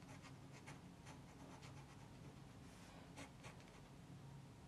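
Faint pencil strokes scratching on drawing paper, a handful of short strokes spread through, over a low steady hum.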